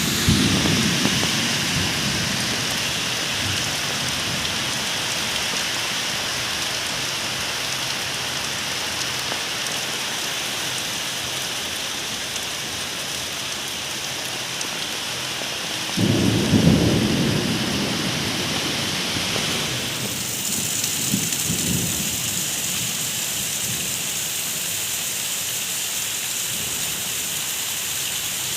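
Steady rain with two rolls of thunder, one right at the start and one about halfway through, each rumbling for a few seconds; a fainter rumble follows shortly after the second.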